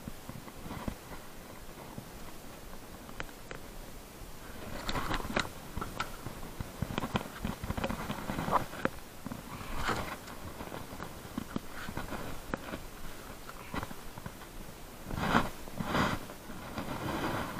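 Irregular knocks, slaps and scrapes of a landed snakehead flopping on a wooden boat deck and being gripped by hand, the loudest bursts near the end.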